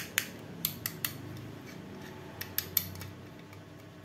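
Hard-plastic housing of a bi-LED projector headlight being handled, giving a scatter of sharp clicks and taps, a few near the start and a cluster about two and a half seconds in, with soft rubbing between them.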